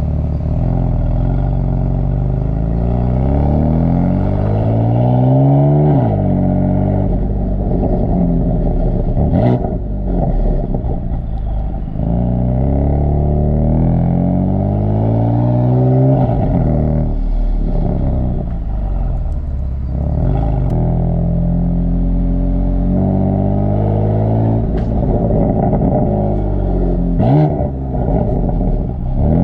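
Exhaust of a BMW F82 M4's twin-turbo inline-six, heard from a mic at the tailpipes while it accelerates through the gears. The engine note climbs in pitch and drops sharply at each upshift, over and over, with a short sharp crack at a couple of the shifts.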